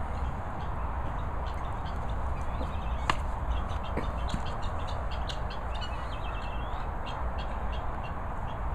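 A flock of guinea fowl calling in short, harsh, repeated notes, with a quick rattling run of notes about seven seconds in. A sharp click comes about three seconds in, over a steady low rumble of background noise.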